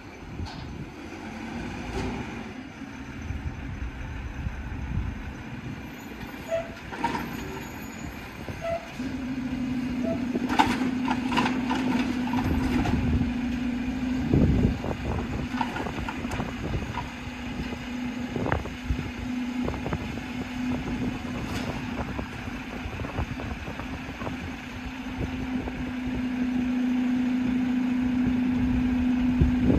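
Mack MRU garbage truck with a Heil Dura Pack body running, a steady drone that grows louder about nine seconds in and again near the end, with scattered clanks and bangs.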